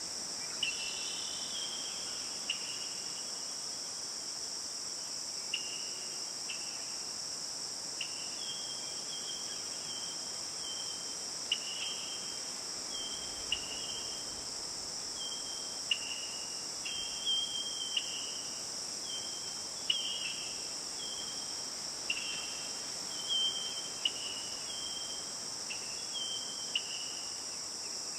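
A steady, high-pitched insect chorus, like crickets trilling, running without a break. Short call notes from another animal come over it every second or two.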